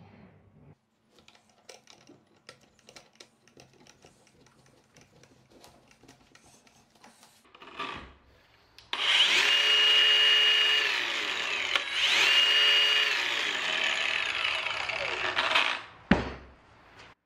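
Angle grinder motor running with a metal rod mounted on its spindle, its pitch rising and then dropping twice, after several seconds of faint clicks as the metal parts are handled. The motor stops near the end and a single sharp knock follows.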